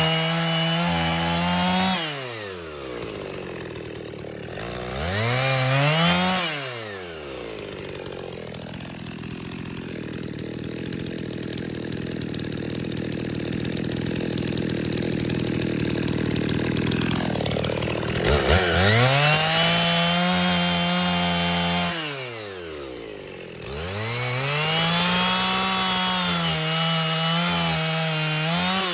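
Gas chainsaw bucking black walnut logs: the engine goes to full throttle in four bursts, dropping back to a lower, steady run in between.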